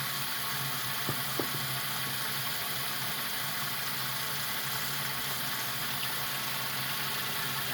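Water running steadily from a tap as a fidget toy is rinsed, with a couple of faint knocks about a second in.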